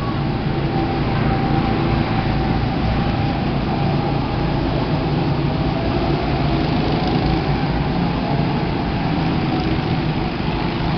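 Go-kart engines running on the track, a steady drone with a faint engine whine that drifts slightly in pitch.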